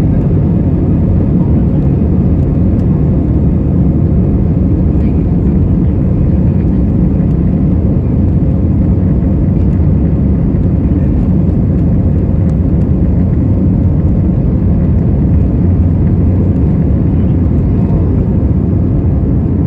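Steady low roar of jet engines and airflow heard inside the cabin of an Airbus A320 airliner, loud and unchanging.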